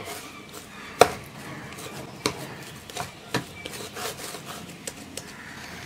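Soft rice-flour dough log rolled and pressed by hand on a wooden cutting board: a few light knocks on the board, the loudest about a second in, with faint rubbing of hand and dough between them.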